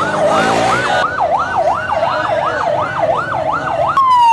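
Police motorcycle siren in a fast yelp, sweeping up and down about two to three times a second. Near the end it switches to a single steady tone that slowly falls in pitch.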